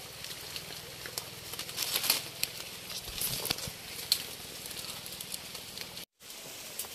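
Rustling and crackling of wet leaves and thin stems as a hand searches through forest undergrowth, with scattered sharp snaps. The sound cuts out for a moment about six seconds in.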